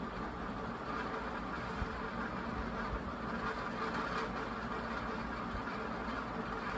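Universal industrial ceiling fan running steadily on the second-fastest setting of a five-speed control. A constant rush of air is heard with a steady motor hum under it.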